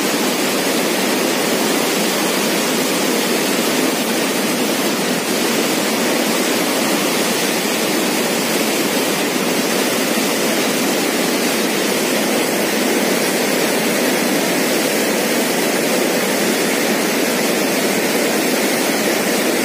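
Steady rushing of turbulent floodwater churning in the channel below a dam's sluice gate, the river running high and overflowing.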